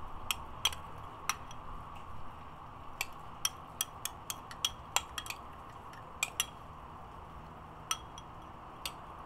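Metal spoon clinking and scraping inside a glass food-processor bowl while spooning out seasoning: a string of irregular sharp clinks, most of them single taps a fraction of a second to a second apart.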